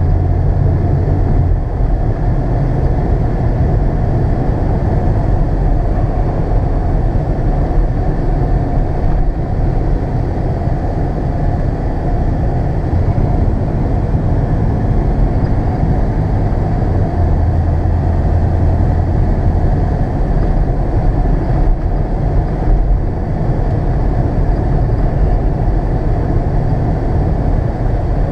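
Cab noise of a 1989 Chevrolet C/K 1500 pickup on the move: its 5.7-litre V8 and the road give a steady low rumble. A low engine hum swells briefly near the start and again about two-thirds of the way through.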